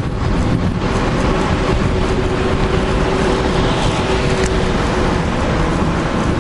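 Loud, steady wind rush and road noise on a camera microphone riding along on a bicycle, with city car traffic passing and a faint steady hum underneath for the first few seconds.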